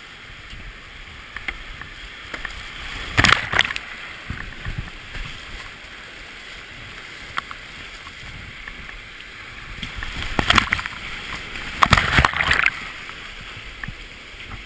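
Creek whitewater rushing steadily past a kayak running small rapids, with loud splashes about three seconds in and again twice between ten and thirteen seconds.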